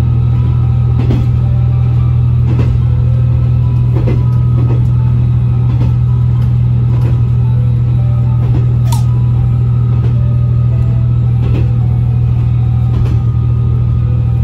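KiHa 120 diesel railcar under way, heard from on board: the engine's steady low drone, with occasional short clicks from the wheels over rail joints.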